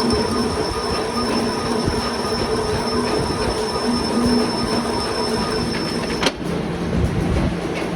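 Metal being cut on a machine while re-cutting the damaged threads of a truck's tube axle, with a steady high squeal from the cut. About six seconds in there is a sharp click, the squeal stops, and a lower steady hum carries on.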